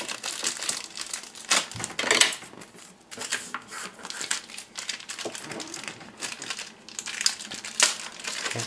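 Plastic packaging crinkling as it is handled, in irregular crackles of varying loudness.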